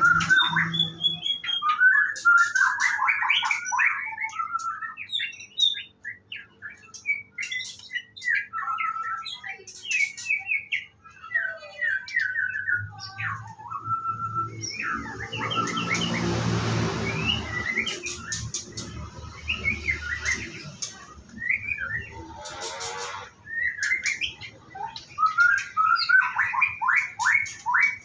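White-rumped shama singing a varied song of quick whistled and chattering phrases, with a rushing noise for several seconds about halfway through.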